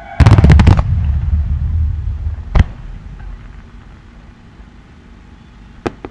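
Fireworks: a quick volley of bangs about a quarter second in, trailing into a rumble that dies away over about two seconds, then one sharp bang a little later and two faint cracks near the end.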